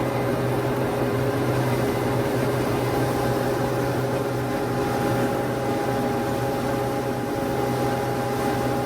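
Allis-Chalmers L3 combine running steadily under load while harvesting corn: an even mechanical drone with a constant low hum, and a faint higher whine joining about three seconds in.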